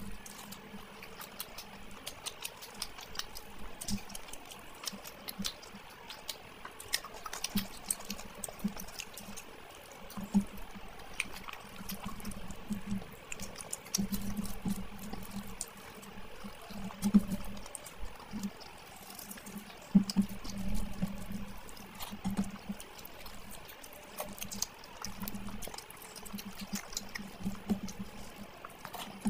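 Wet eating sounds: fingers squelching rice through oily mutton curry gravy, with chewing and many short mouth smacks and clicks.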